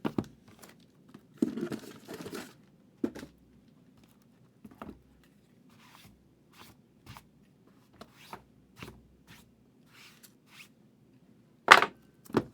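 A sealed trading card box being unwrapped and opened by hand: a run of short plastic wrap tears, crinkles and cardboard rustles, with one louder rip near the end.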